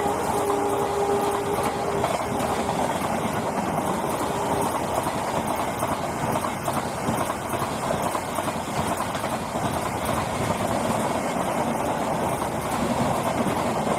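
Indian Railways express passenger coaches passing close by at speed: a steady rush of wheel and track noise. A horn's steady tone trails off in the first few seconds.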